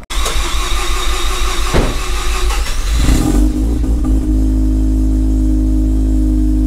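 Mazda RX-7 FD's built street-port single-turbo rotary engine running. It is rough and uneven for the first three seconds, with one sharp crack partway through, then settles into a steady idle.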